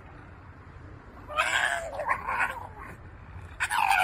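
Dog giving two drawn-out howling yowls, each falling in pitch: one about a second and a half in, lasting about a second, and another starting near the end.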